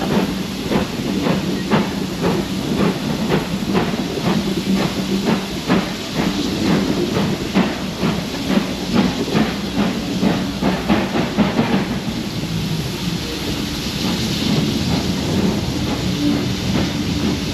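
GWR small prairie tank locomotive 5521 pulling a train on its own, its steam exhaust chuffing in sharp regular beats about two to three a second. About two-thirds of the way through the beats give way to a steadier hiss of steam.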